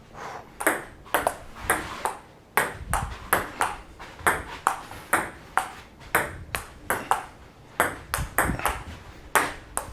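Table tennis rally: the ball clicking back and forth off the paddles and the table, about two to three hits a second, in one long unbroken exchange.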